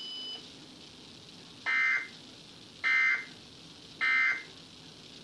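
Emergency Alert System digital data tones: three short, identical buzzing bursts about a second apart. The bursts are short enough to be the end-of-message code that closes the alert.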